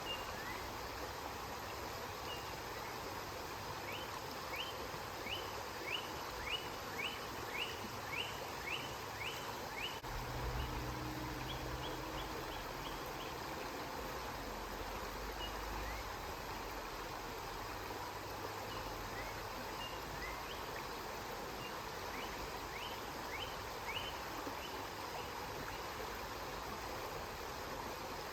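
River water flowing steadily, with runs of short high chirps from a small animal, about two a second, in the first third and again near the end. A low rumble comes in briefly near the middle.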